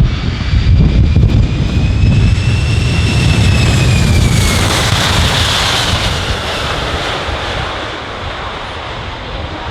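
Boeing C-17 Globemaster III landing, its four turbofan jet engines giving a heavy low rumble with a high whine that falls in pitch about four seconds in. A broad rush of jet noise follows and slowly fades.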